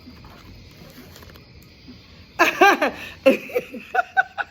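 A woman's voice making wordless sounds that bend up and down in pitch, something like laughter, starting a little past halfway and ending on a short held note. Before that there are only a few faint light clicks.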